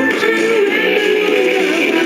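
A pop song with singing and guitar, played on the FM radio of a 1980s Electrobrand stereo and heard through its speaker.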